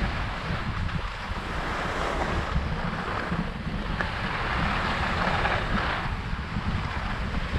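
Wind rushing over the microphone of a skier moving downhill, a low rumble throughout, with the hiss of skis sliding over the snow swelling and fading a few times.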